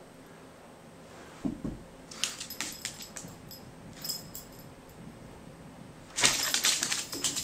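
Metal tag on a pug puppy's collar jangling in short bursts as the dog moves, with one longer, louder burst of jangling near the end. A brief low thump comes about a second and a half in.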